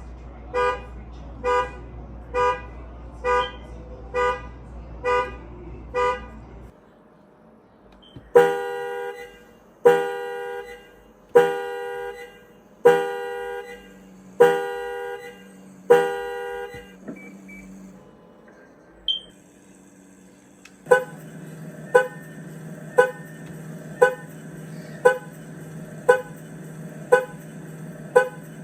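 Three car alarms one after another, each sounding the car's horn in evenly spaced honks. The first honks about once a second over a low hum. After a break a louder one honks about every second and a half, and near the end another honks about once a second.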